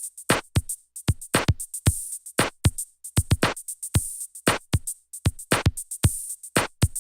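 Intro music: an electronic drum-machine beat of quick kick-drum hits that drop in pitch, each topped with a crisp high tick, without melody.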